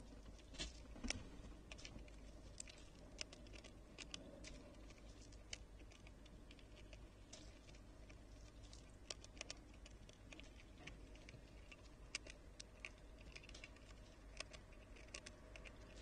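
Ezo squirrel (Hokkaido red squirrel) feeding on a seed tray: a quiet, irregular run of small sharp clicks and crackles as it cracks seeds and shuffles them, with a few louder clicks about a second in.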